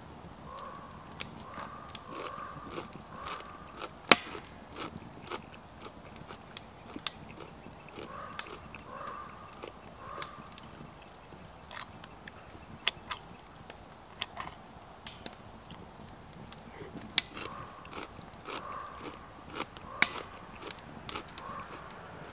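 Close-up eating sounds: chewing mouthfuls of beef chow mein noodles, with scattered sharp clicks of a fork against the plate.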